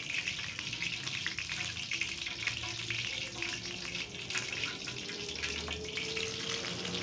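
Hot cooking oil sizzling in a frying pan: a steady hiss with frequent small crackles and pops.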